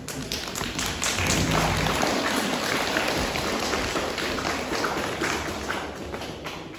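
Audience applauding: dense clapping that swells over the first second and a half, then slowly dies away.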